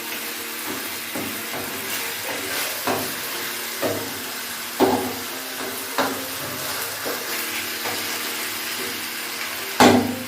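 Chicken pieces sizzling in a pan while being braised with spices, a steady frying hiss. Several short sharp clinks of cookware break through it, the loudest near the end.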